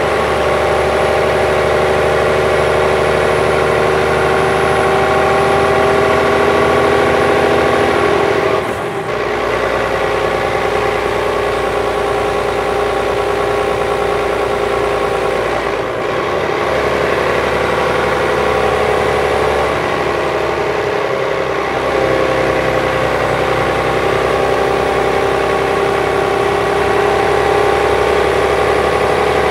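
Volvo B12B bus's 12-litre inline-six diesel (DH12E) idling steadily while parked. The note shifts briefly about three times, near 9, 16 and 21 seconds in.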